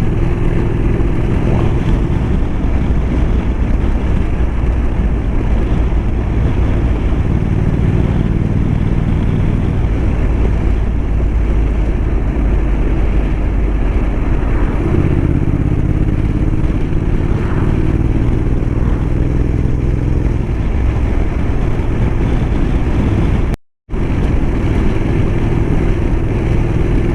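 Motorcycle engine running steadily under way, with the rush of wind over the microphone; the engine note shifts a couple of times. The sound cuts out completely for a moment near the end.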